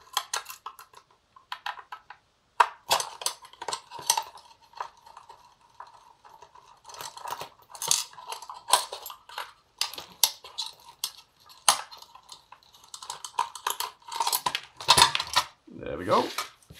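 Irregular metallic clicks and clinks of a screwdriver working a small screw out of a metal antenna plate, with the loose metal parts handled on the bench. A faint steady high tone runs underneath.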